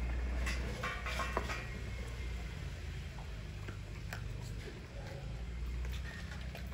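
Dogs eating raw chicken meat and bone: scattered wet clicks and crunches of chewing, a cluster of them about a second in, over a steady low rumble.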